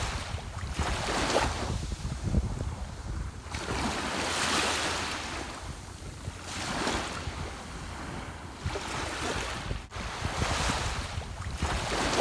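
Ocean waves breaking and washing onto shore, a hissing surge swelling and fading every two to three seconds over a steady low rumble.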